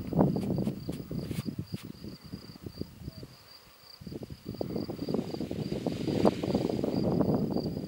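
Wind buffeting the microphone in gusts, dropping to a brief lull a little after three seconds and then picking up again. Under it, a steady high insect trill pulses on throughout.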